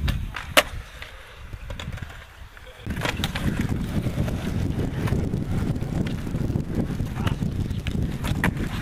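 Skateboard wheels rolling over concrete, a low rumble with wind on the microphone. A single sharp clack of a board comes about half a second in; the rumble drops away for a couple of seconds, then picks up again about three seconds in with scattered clicks.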